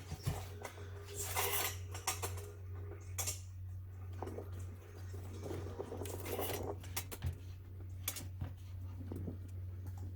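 Scattered clicks, knocks and short scrapes of plastic trim and hand tools being handled while parts are stripped from a car's front bumper, over a steady low hum.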